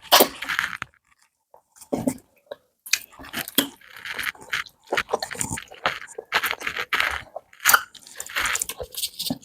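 Close-up eating sounds of a person chewing a meal of rice fufu and okra soup: a quick, irregular string of short mouth noises, after a brief pause about a second in.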